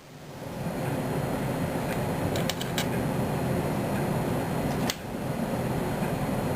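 Steady fan-like background noise, with a few light clicks about two and a half seconds in.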